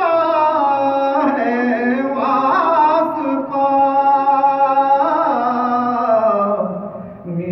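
A man singing a devotional salaam solo, holding long drawn-out notes with slow slides in pitch.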